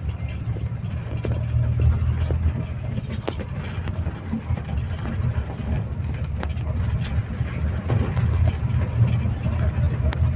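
Inside the cabin of a King Long XMQ6128AYW coach on the move: a steady low drone from the diesel engine with road noise, and scattered clicks and rattles from the interior.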